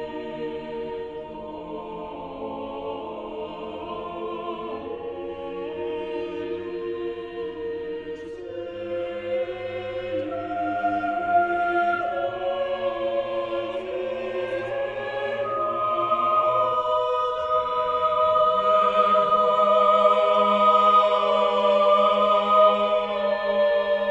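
Choral music: a choir singing slow, held chords that gradually grow louder.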